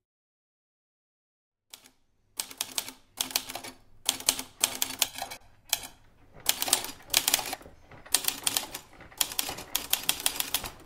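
A manual typewriter being typed on in quick bursts of key strikes with short pauses between, starting after about two seconds of silence.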